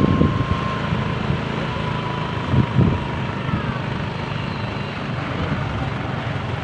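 Steady vehicle engine and road noise while driving along, with two brief low thumps, one at the start and one near the middle.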